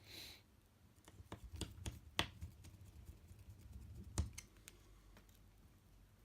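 Small hand tools clicking and tapping against an iPad mini 2's parts during reassembly: a scatter of light clicks, with two sharper taps about two and four seconds in.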